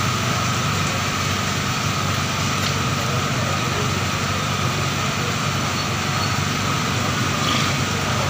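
Beef qeema sizzling steadily on a large hot tawa as water is splashed onto it from a mug, sending up steam, over a steady low hum.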